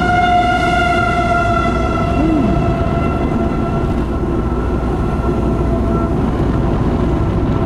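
Outdoor tornado warning siren sounding a steady tone that slowly sinks in pitch and fades, over a steady low rumble of wind or road noise.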